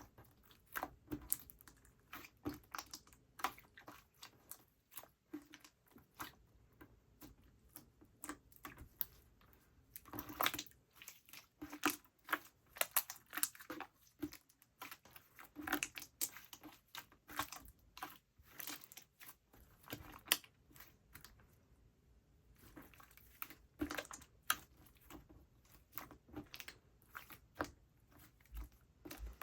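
Slime being squeezed and poked by hand, giving many short, irregular sticky clicks and pops, some in quick runs.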